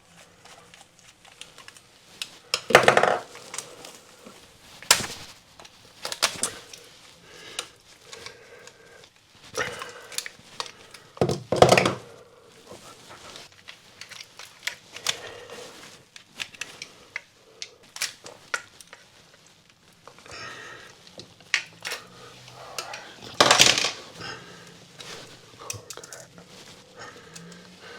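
Hand tools and small metal parts clicking and clattering while an electrical fused spur is dismantled and rewired. Scattered light clicks run throughout, with a few louder clatters.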